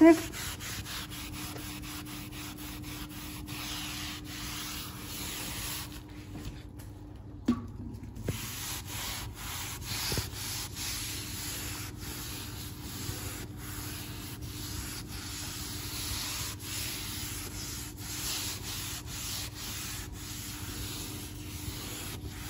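Microfibre cloth scrubbing Bar Keepers Friend powder over a quartz worktop: a steady gritty rubbing whose scratchiness comes from the abrasive powder. The scrubbing breaks off briefly about six seconds in, and a knock comes as it starts again.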